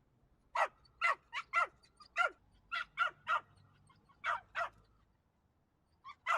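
A dog barking: about ten short, high-pitched barks in quick runs of two or three, with brief pauses between.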